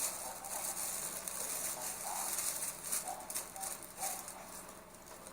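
Faint crackling of burning newspaper, with several short bird calls.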